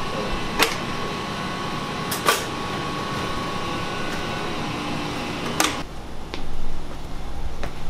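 Steady hum of running machine fans with a faint high whine, broken by three sharp clicks. About six seconds in it gives way to a lower, different room background with a dull thump.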